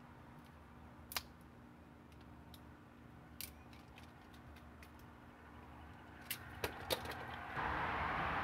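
A few sharp, scattered clicks from an RJ45 crimping tool and a plastic network plug being worked onto an Ethernet cable, with three quick clicks close together near the end. Then a steady hiss starts abruptly.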